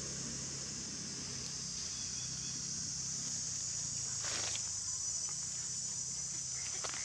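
Steady high-pitched drone of insects, with a brief rustle about four seconds in.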